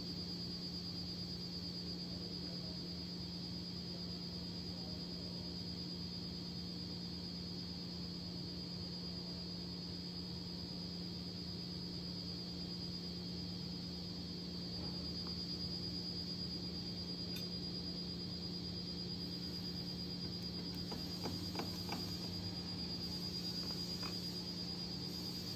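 A steady low hum with a faint high-pitched whine above it, and a few light clicks near the end.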